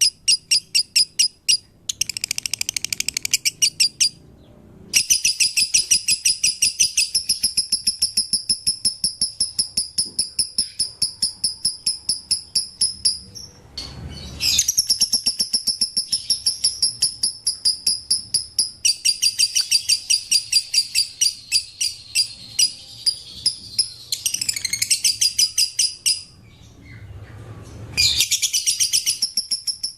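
Lovebird calling in long runs of rapid, high-pitched chirps, several a second, broken by short pauses about four seconds in, near the middle and shortly before the end.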